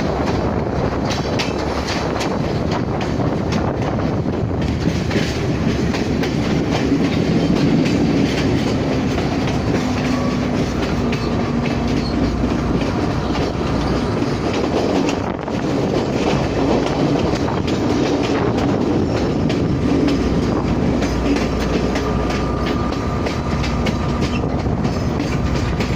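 A vehicle running steadily, with a continuous rumble and a fast, irregular clatter.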